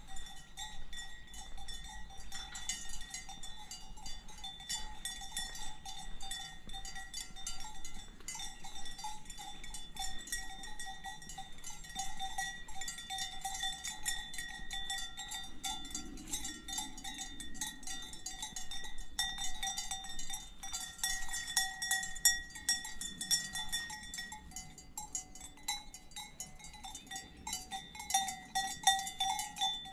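Cowbells on grazing livestock clanking irregularly, several bells overlapping so that the ringing never stops.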